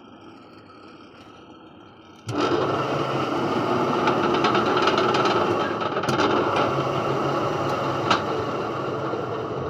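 A loud machine starts abruptly about two seconds in and runs steadily, a dense mechanical noise over a low hum, with a few sharp metallic ticks.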